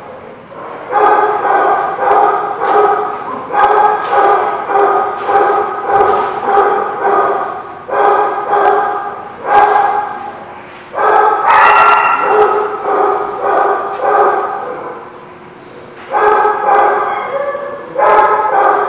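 Dog play barking: quick runs of short, same-pitched barks, about two a second, with a higher yip a little past halfway and a lull shortly before the end.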